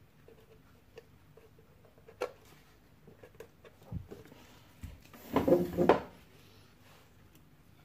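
Small clicks and taps of tweezers and fingertips on the plastic and metal front of a vintage 8-track car stereo while a paper label is pressed into place. About five and a half seconds in there is a louder, rattly clatter of handling that lasts under a second.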